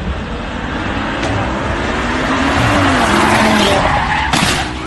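A car's tyres squealing as it slides sideways on the road, with its engine revving, loudest about three seconds in. A short, sharp burst of noise near the end.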